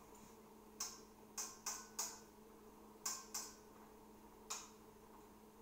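A cooking spoon knocking against a wok while stirring: about seven short, sharp clicks at uneven intervals, over a faint steady hum.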